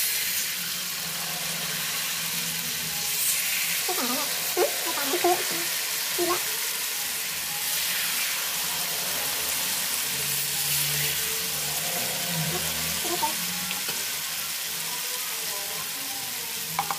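Peyek batter with mung beans deep-frying in hot oil in an aluminium wok, a steady loud sizzle. A few light knocks of the ladle against the wok come about four to six seconds in.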